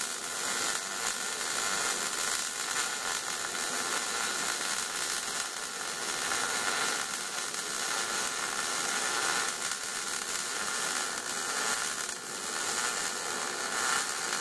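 Electric arc welding on steel: a steady crackle from the arc laying one continuous weld bead, held without a break.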